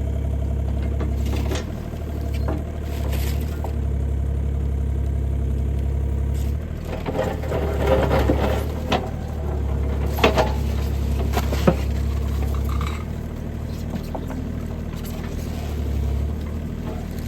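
Bobcat E35 mini excavator's diesel engine running steadily under light hydraulic load, its pitch dipping and swelling a few times as the arm works. Over it come several sharp cracks and crunches, busiest about halfway through, from the bucket and thumb crushing a cardboard box.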